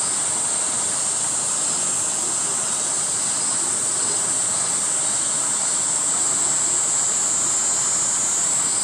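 Cicadas singing in a loud, steady high-pitched chorus over a constant rush of outdoor background noise.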